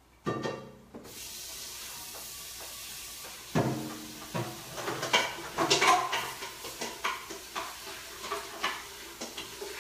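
A hot stainless-steel Instant Pot inner pot being rinsed under a kitchen tap: a clunk, water running steadily, then from about three seconds in a run of metallic clanks and knocks as the pot is handled in the sink.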